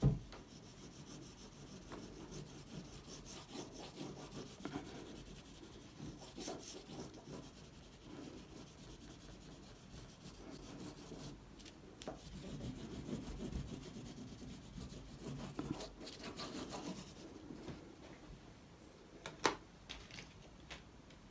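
Oil pastel rubbing and scraping across paint-covered paper in irregular strokes. There is a short knock right at the start and a couple of brief clicks near the end.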